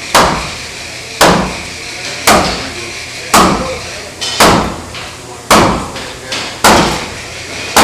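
Hammer blows on wood in a steady rhythm, about one heavy strike a second, each ringing briefly, as shipwrights drive a freshly steamed plank down into place on a wooden ship's hull.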